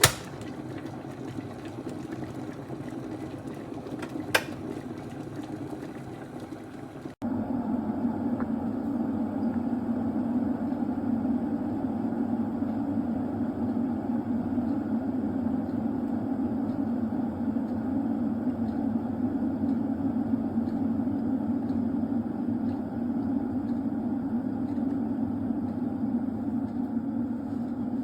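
Electric kettle heating water: hissing water noise with a single click, then, after a sudden break about seven seconds in, a steady low rumble and hiss.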